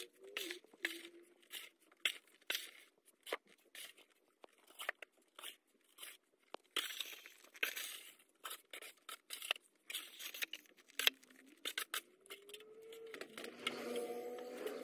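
Red plastic snow shovel scraping and crunching across packed snow and ice in short, irregular strokes. A low wavering hum comes in near the end.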